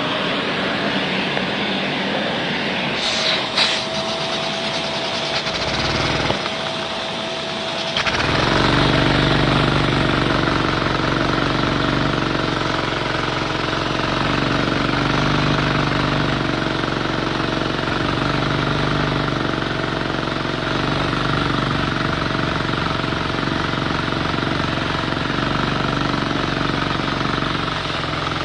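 LEGO model engine running steadily with a mechanical whirring; a thin whistle-like tone joins about three seconds in. About eight seconds in the running gets louder and deeper and stays there.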